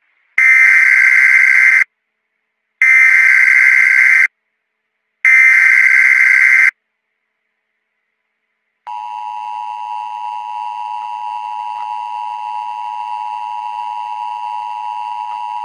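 Emergency Alert System SAME header: three bursts of digital data tones, each about a second and a half long and about a second apart. After a pause of about two seconds, the EAS attention signal starts about nine seconds in: a steady two-note tone of 853 and 960 Hz that holds on.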